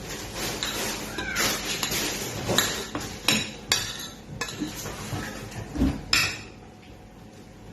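Cutlery and dishes clinking and scraping during a meal, with several sharp clinks in the middle; it goes quieter for the last second or so.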